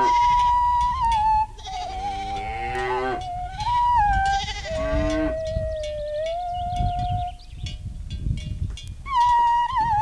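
Farm animals bleating, three long wavering calls in the first half, over a high, flute-like folk melody.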